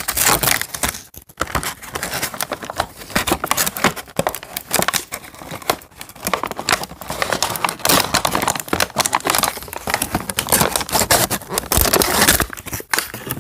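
Cardboard and plastic toy packaging being handled and opened: dense, irregular crinkling and rustling with sharp crackles.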